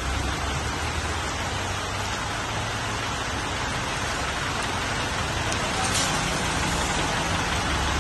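Steady rain falling on wet pavement, with the low running of a Toyota Land Cruiser hardtop's engine as the vehicle moves slowly.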